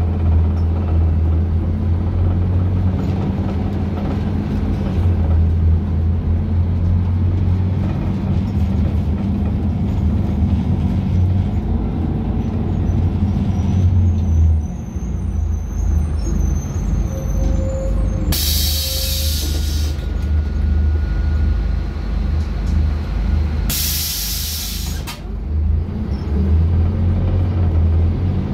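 Scania K250UB city bus's rear-mounted diesel engine running under way, heard from inside the cabin, then easing to idle as the bus stops. A short beep sounds, then compressed air hisses out loudly twice, about five seconds apart, from the bus's pneumatic system. The engine picks up again near the end.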